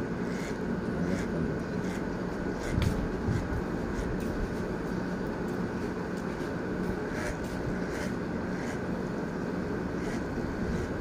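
Corded electric hair clipper running with a steady buzz as it cuts hair, with a few faint clicks.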